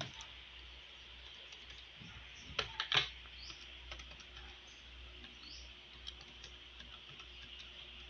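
A quick run of about four key clicks near three seconds in, then a few fainter single ticks, over a steady low hiss and hum.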